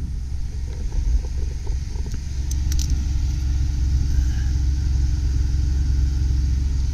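1995 Ford Taurus engine idling: a steady low rumble, with a few light clicks about one to three seconds in.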